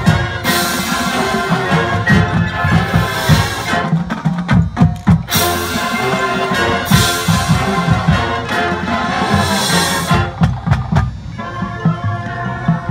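Marching band playing a field show: brass, marching drums and a front ensemble of marimbas together. Loud full-band passages are broken by sharp drum strokes about four seconds in and again near ten seconds, and the music turns softer from about eleven seconds.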